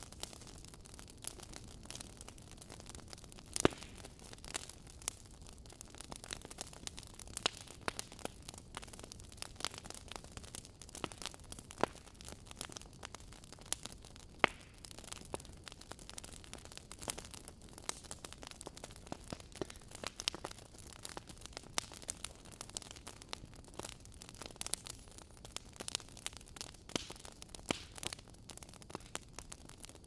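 Wood fire crackling in a fireplace: irregular sharp pops and snaps over a soft hiss, with a few louder pops, the sharpest about four seconds in and near the middle.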